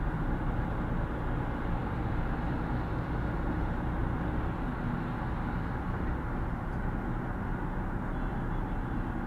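Steady road noise inside a moving car's cabin at highway speed: a low, even rumble of tyres and engine.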